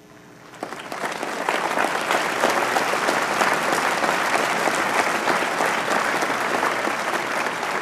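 Large audience applauding: dense clapping starts about half a second in, builds within a second and holds steady.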